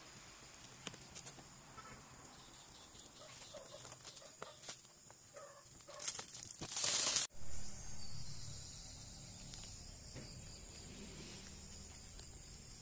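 Thin plastic protective film crinkling and crackling as it is peeled off a car's window rain visor, with a loud rustling rip as the film is pulled away about six seconds in. After that, a steady low hum.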